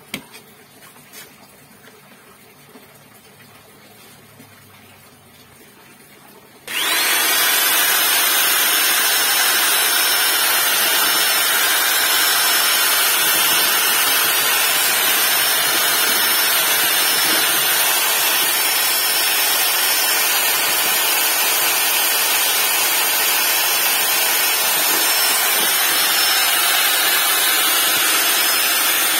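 A corded electric drill fitted with a mixing shaft starts suddenly about seven seconds in and then runs at a steady speed, churning a bucket of green liquid dish soap.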